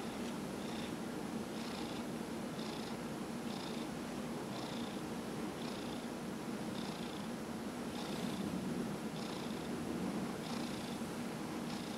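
Domestic cat purring steadily while being massaged, with a faint higher hiss recurring about once a second.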